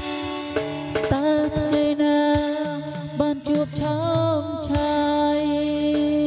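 Music: a melodic line with sliding, bending notes over low bass notes, settling into one long held note in the last second or so.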